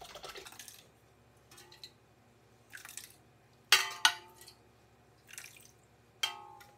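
Wet, pulped elderberries sloshing and splatting as they are scooped from a stainless steel pot and poured into a fruit press. There are a few sharp clinks against the metal pot that ring briefly: the loudest comes a little before four seconds in, and another near the end.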